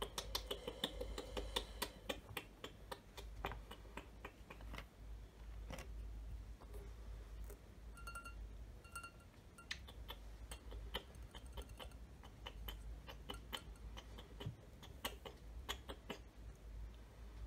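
Close-miked fingers and nails tapping and handling a plastic water bottle and a clear plastic cup, making many small irregular clicks. The bottle's cap is twisted off during the tapping.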